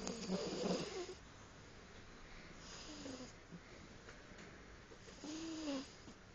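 Domestic cat snoring in its sleep: three snoring breaths about two and a half seconds apart, the first the loudest.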